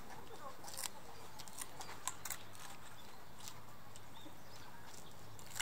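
Giant panda chewing bamboo stalks: scattered sharp cracks and crunches at irregular intervals, over a steady low background hum.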